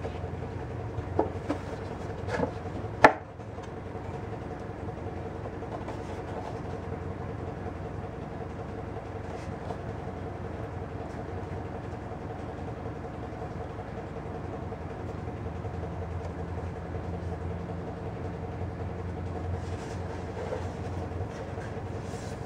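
A few light wooden knocks, then one sharp click about three seconds in, as a wooden guitar neck is handled against and seated in its body, over a steady mechanical room hum.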